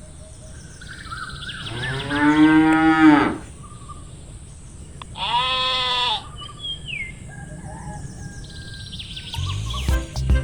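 A cow mooing twice, a long low moo and then a shorter, higher one, over faint bird chirps. Music starts near the end.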